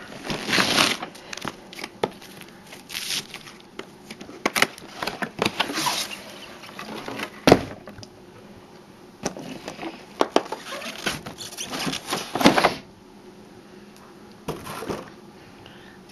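A cardboard box and its packaging being opened and handled, giving irregular bursts of scraping and rustling, with a sharp knock about seven and a half seconds in.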